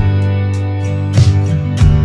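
Background music led by guitar over sustained chords, with a beat of sharp drum hits.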